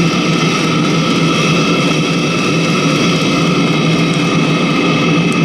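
Chinese diesel air heater running steadily on engine oil, its combustion blower and burner making an even whir with a constant high whine. It is at its lower burn rate and still sustaining its flame.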